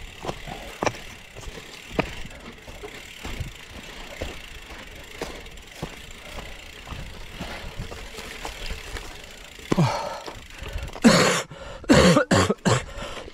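A gravel bike on 700x38c tyres rolling over rough off-road ground: steady tyre noise with frequent small clicks and rattles. Near the end come several loud, short, voice-like bursts.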